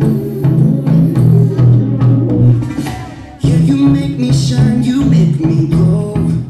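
Recorded dance music played loud over the auditorium speakers, with a strong bass line. It dies away about two and a half seconds in and cuts back in sharply a second later.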